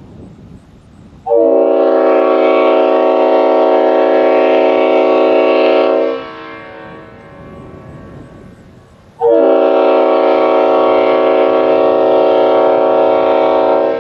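Leslie RS5TF five-chime locomotive air horn, full orifice, with its 3-1 and 4-4 bells reversed, blown in two long blasts of about five seconds each. Each blast is a loud chord that cuts in and cuts off suddenly.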